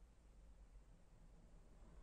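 Near silence: faint, steady low room tone.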